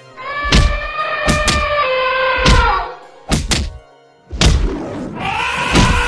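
Animated-fight sound effects: a run of about eight heavy thuds of blows, over two long, high trumpeting calls of an elephant, the second one near the end.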